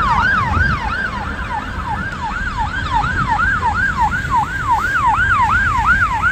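Fire engine siren on a fast yelp, its pitch sweeping up and down about three to four times a second, over a low rumble of traffic.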